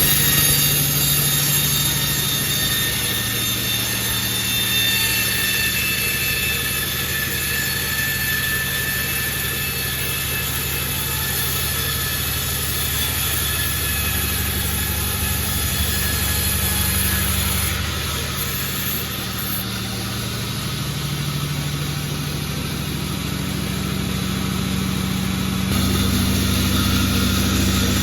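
Sawmill machinery running steadily with a continuous engine hum; its pitch shifts about two-thirds of the way through, and it gets a little louder near the end.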